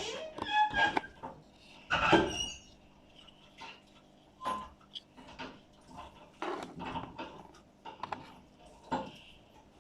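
Irregular small clicks, taps and knocks from small toy parts being handled, with a few brief squeaks near the start and about two seconds in.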